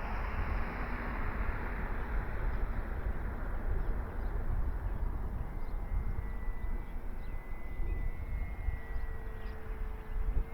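Electric RC scale plane, an FMS Cessna 182, flying overhead: the brushless motor and propeller give a distant rushing whine that fades over the first few seconds, then a faint steady hum that dips slightly in pitch. Wind buffets the microphone throughout.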